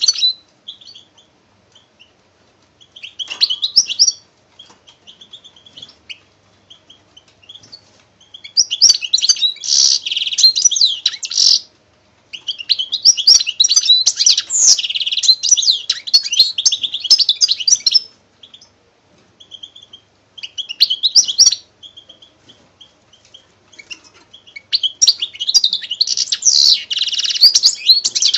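A small songbird singing: rapid high-pitched twittering and trills in phrases several seconds long, with gaps of scattered single chirps between them.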